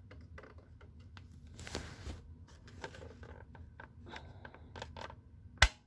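Handling noise from a plastic smoke detector as its cover is fitted: a scatter of small plastic clicks and scrapes, with one sharp click near the end.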